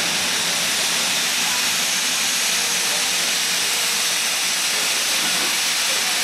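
NSW C36-class steam locomotive 3642 letting off steam: a loud, steady hiss.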